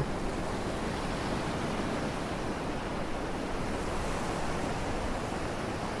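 Ocean surf washing onto a beach, a steady rushing hiss with no distinct breaks.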